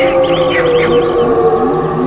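Jungle ambience sound effect for a dinosaur setting: a long, held, low-pitched call that slowly sinks towards the end, over steady droning tones, with quick high birdlike chirps in the first part.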